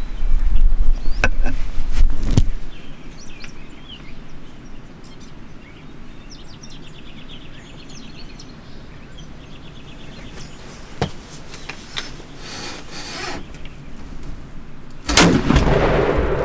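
Birds chirping and trilling over a low rumble of wind or handling on the microphone, which is loud for the first couple of seconds and then drops. Two faint clicks come later, and a sudden loud turkey-shotgun blast near the end rings on for over a second.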